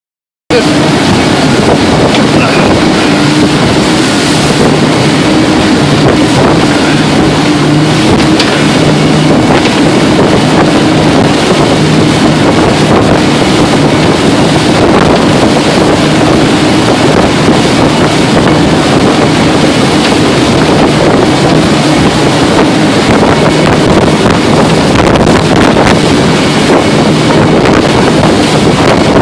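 Motorboat running at speed over open water: a steady engine drone under wind buffeting the microphone and the rush of spray along the hull.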